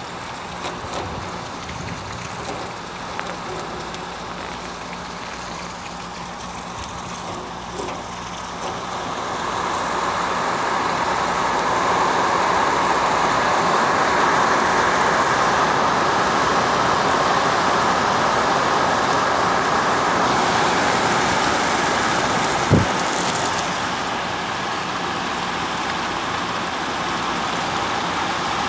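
Heavy rain pouring onto pavement, a steady hiss that swells about ten seconds in and stays loud. A faint low hum runs under the first part, and there is a single sharp knock about three quarters of the way through.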